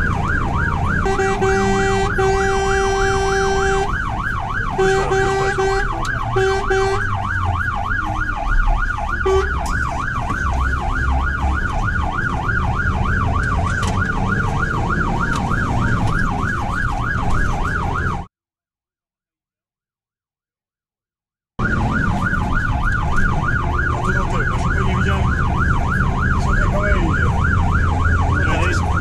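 Fire engine's siren on a fast yelp, rising and falling over and over, heard from inside the cab over engine and road rumble. A steady horn blast sounds three times in the first seven seconds, one long and two short, and the sound cuts out completely for about three seconds midway.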